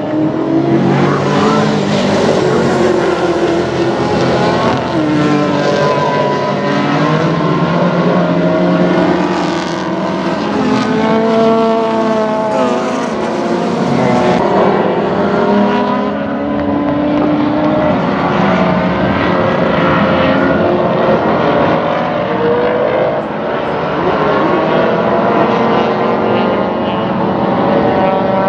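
A pack of historic racing muscle cars and touring cars at full throttle, several engines overlapping. Their pitch keeps climbing and dropping with gear changes and as the cars pass.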